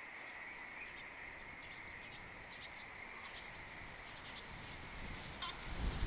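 Small birds giving brief, high chirps now and then over a steady high-pitched drone, with a low rumble building near the end.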